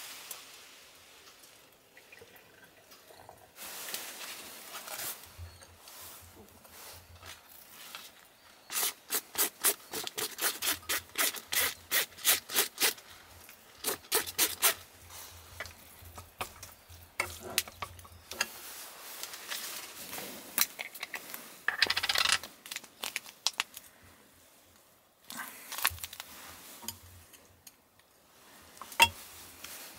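Chopsticks clicking and scraping against a metal mess tin of pasta, with a fast run of about four or five clicks a second for several seconds in the middle, and paper rustling as food is scraped off it.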